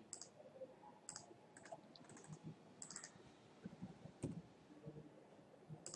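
Faint computer mouse clicks and keyboard taps: about a dozen short, irregular clicks as a dimension value is entered.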